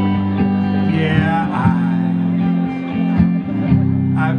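Live band playing through a PA: amplified guitar over steady low bass notes and regular drum hits.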